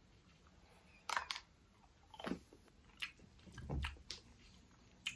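Quiet chewing and biting of a hollow white chocolate bunny: a scattering of short, crisp crunches and mouth clicks a second or so apart.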